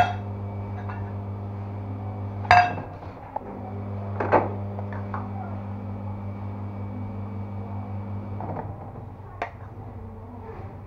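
A few clinks and knocks of a cooking pan and utensils, the loudest about two and a half and four seconds in, over a steady low hum that stops near the end.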